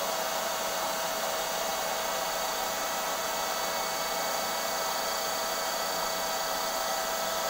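Ingco 550 W electric paint spray gun running steadily while spraying paint: a constant motor whine over a rush of air, with no change in pitch or level.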